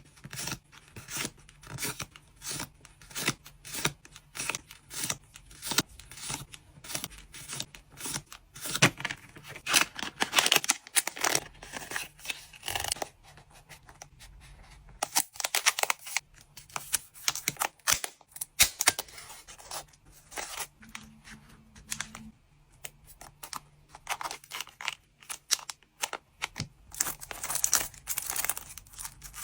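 Packaging being handled close up for packing trading card orders: a dense series of short crinkling and tearing sounds from plastic and paper wrapping, with a few louder rips about a third of the way in and near the end.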